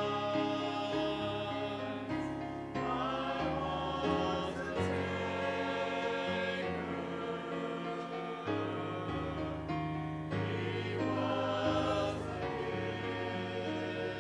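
Mixed church choir of men and women singing a gospel hymn, holding notes and moving through chord changes.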